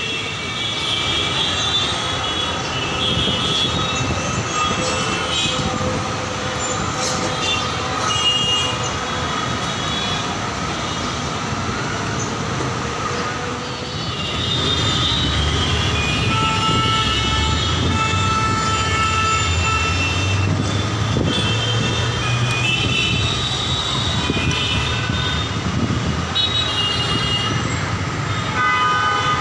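Busy city road traffic: engines running, with frequent short high-pitched vehicle horns sounding over it. A heavier vehicle rumbles past through the middle of the stretch.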